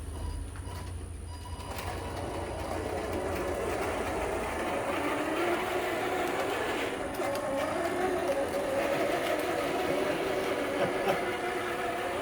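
Electric wheel drive motors of a prototype remote-control lawnmower whining as it is driven, the pitch wandering up and down as the speed changes. The whine starts about two seconds in and gets a little louder.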